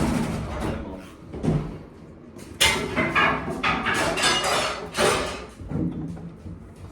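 Irregular knocking, rattling and scraping of hand work on a door closer's metal fittings, busiest for a few seconds in the middle.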